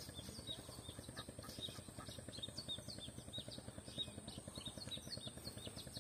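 Small birds chirping over and over, many short falling chirps, with a steady high-pitched tone running underneath.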